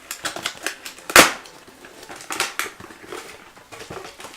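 Clicks and knocks of computer parts, a hard drive and a card reader, being handled and set into a PC case, with one louder knock about a second in.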